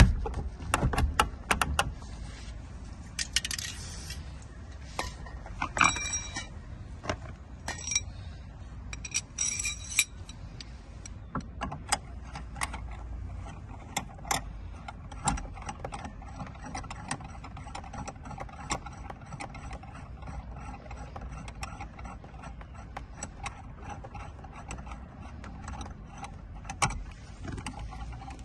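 Irregular metallic clicks, clinks and light rattles as a Lock Mate door-opening tool, a flat bar with a knurled metal rod, is fitted and worked by hand against the edge of a UPVC door. The clicks come thick and fast in the first ten seconds, then more sparsely, over a low steady rumble.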